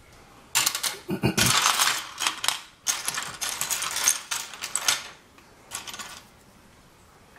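Small plastic VEX IQ construction parts (beams, plates, pins and gears) clattering and rattling against each other as hands rummage through a pile of them on a wooden tabletop. The clatter is dense for the first few seconds, with one last short rattle about six seconds in.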